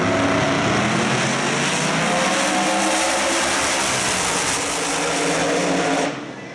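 Two drag-radial race cars launching and running at full throttle down a drag strip. Their loud engine note climbs in pitch, and the sound drops off sharply about six seconds in.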